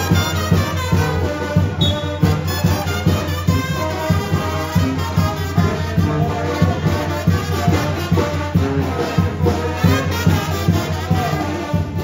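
Latin-style music with brass instruments over a steady beat.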